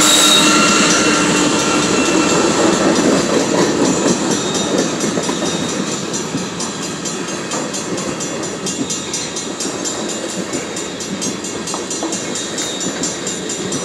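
Freight train passing on the rails: the GE ES44C4 diesel locomotive goes by at the start, then the wheels of empty wind-turbine-blade flatcars roll past. The sound fades steadily as the train moves away.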